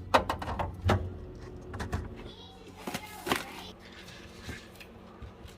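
A series of sharp clicks and knocks, most of them in the first two seconds and a couple more about three seconds in, as kitchen items are handled and set down, over a faint steady hum.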